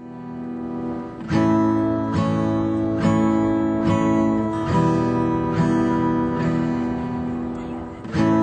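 Music: a strummed acoustic guitar playing a slow song introduction. It fades in, then chords are struck a little under once a second.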